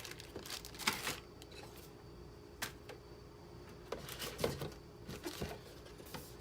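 Handling noise from a Yeti USB microphone and its packaging: short rustles and sharp clicks in several clusters, with a lone click near the middle.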